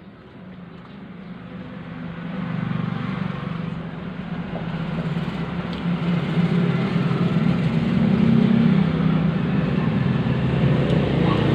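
A motor vehicle's engine running close by, a steady low rumble that grows louder over the first few seconds and then holds.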